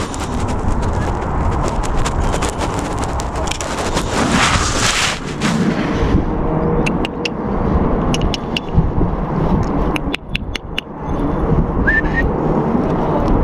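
Wind buffeting the microphone with a heavy, continuous rumble. Through the middle come three short runs of rapid, evenly spaced clicks, typical of a Canon M50's shutter firing in bursts.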